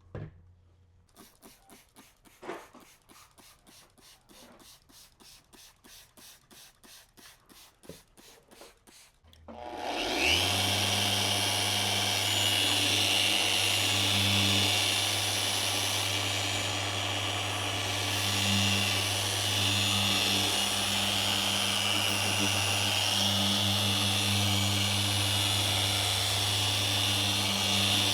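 Faint rhythmic rubbing strokes, about three a second, on a headlight lens. About ten seconds in, an electric power tool, the kind used to sand or polish the lens, starts up and runs steadily with a low hum and a high whine.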